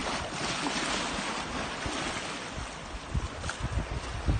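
Sea washing against shoreline rocks, with wind buffeting the microphone in gusts near the end.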